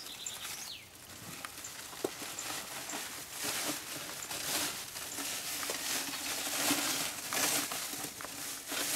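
Long white woven plastic sack tube rustling and crinkling in irregular surges as it is gathered and folded under at its end, the rustling heavier in the second half.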